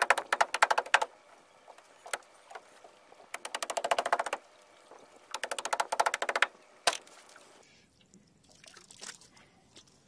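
A mallet striking green crabs caught in a trammel net: three bursts of rapid cracking clicks about a second each, with a single sharp crack shortly after the third, then faint rustling of the net.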